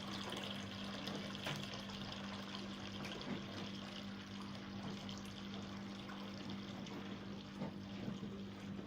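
Wash water draining out of a Sharp 5 kg twin-tub washing machine through its lowered drain hose: a steady flow after the wash cycle, with a steady low hum underneath.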